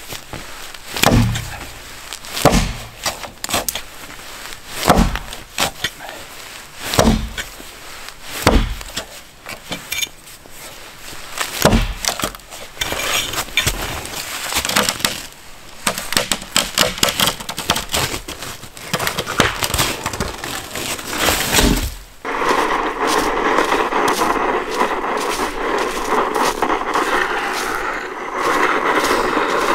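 Axe chopping wood: heavy blows about every one and a half to two seconds, then a quicker run of lighter cracks and splintering. About two-thirds of the way through this gives way abruptly to a steady rushing noise.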